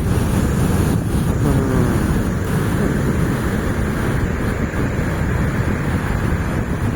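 Gusty storm wind rumbling on the microphone over the steady rush of heavy surf breaking on the beach.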